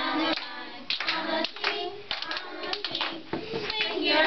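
Hand clapping, with voices singing along.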